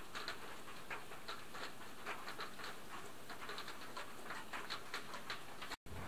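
Footsteps, a quick uneven run of light steps at about three a second, over a faint steady hiss.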